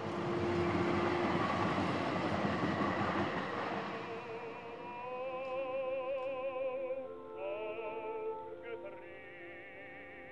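A broad rushing noise fades out over the first four seconds, giving way to film-score music: operatic singing with strong vibrato, several long held notes layered over one another.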